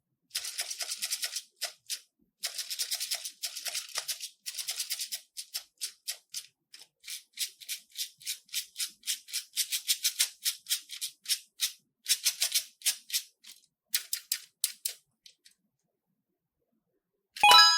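Slime being squeezed and worked by hand, giving crackling, popping clicks. In the first few seconds there are two bursts of dense crackle, then separate pops come about three or four a second and stop near the end. A sharp sound with a brief ringing tone comes right at the end.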